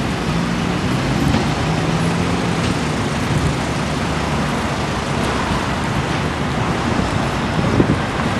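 City street traffic noise: a steady rush of passing vehicles, with a low engine hum in the first few seconds.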